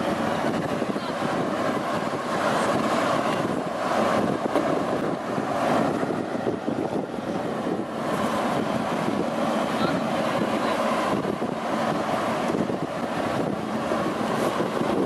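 Steady rush of wind over a moving camera's microphone, with road noise beneath it. The level swells and eases a little, but no single event stands out.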